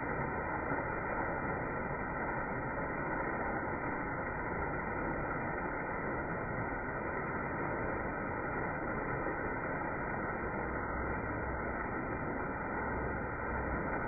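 Steady rush of a small waterfall pouring over rock, heard close up; the audio is slowed down along with the slow-motion picture.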